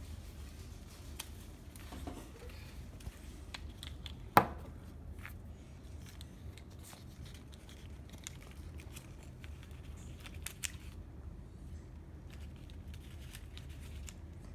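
Light rustling of folded construction paper and scattered small clicks from handling the paper and a glue bottle, with one sharp click about four seconds in.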